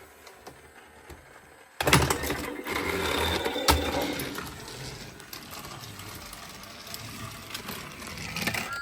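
Small battery toy-train motor starts whirring suddenly about two seconds in and runs steadily, with one sharp click a couple of seconds after it starts.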